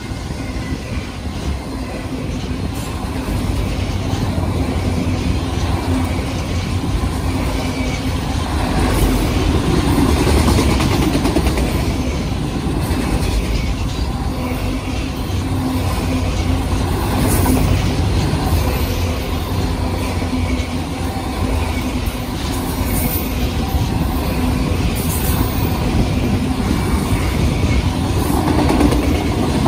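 Union Pacific freight train's autorack cars rolling past, with a steady rumble of steel wheels on the rails.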